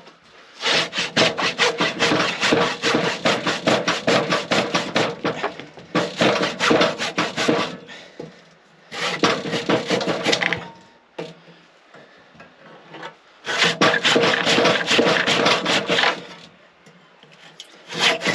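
Hand saw cutting into a wooden post with quick back-and-forth strokes, in four long runs separated by short pauses.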